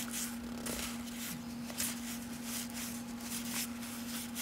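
1992 Topps baseball cards being flipped through one by one in the hand, the cardboard cards sliding and flicking off the stack in quick irregular strokes. A steady low hum runs underneath.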